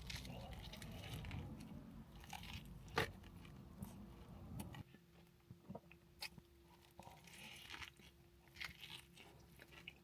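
Faint bites and chewing of a chicken burger with slaw, with short crunchy clicks. There is a sharper crunch about three seconds in.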